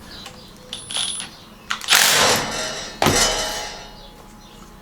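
Metal parts of a dual action air sander clinking as it is handled and reassembled. A few light clicks, then two louder clanks about two and three seconds in; the second rings on briefly as it fades.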